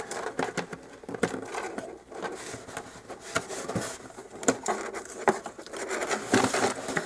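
Hands pressing self-adhesive dollhouse tape wire along a foam-core wall: irregular rustling and scraping with scattered sharp taps, the loudest taps a little past the middle.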